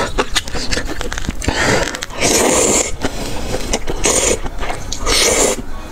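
Noodles slurped into the mouth in four long, noisy slurps, the loudest about two seconds in. Wet chewing and lip-smacking clicks come before them.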